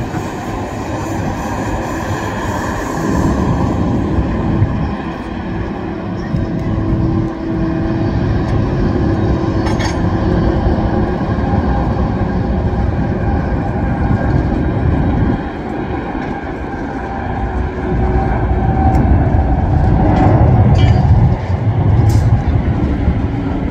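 Jet engines of a taxiing Boeing 767 airliner running steadily at low taxi power, a continuous rumble with a hum over it, growing louder near the end.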